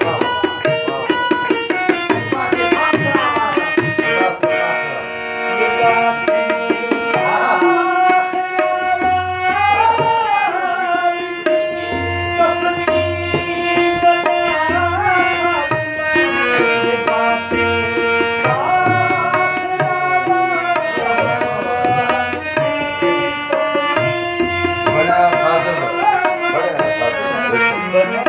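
Harmonium and tabla playing together: the harmonium holds a sustained melody line while the tabla keeps a steady rhythm of deep bass strokes and sharper treble strokes.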